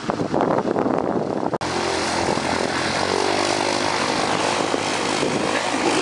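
After a sudden cut about a second and a half in, a four-seat Piper light aircraft's piston engine and propeller drone steadily and loudly.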